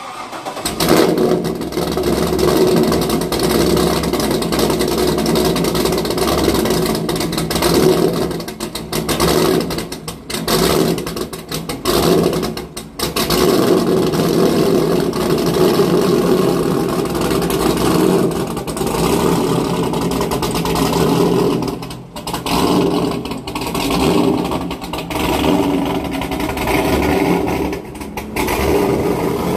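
1998 C5 Corvette's LS1 V8, fitted with a big aftermarket camshaft and still untuned, firing up from a cold start and running at idle. The idle rises and falls unevenly, with several brief dips.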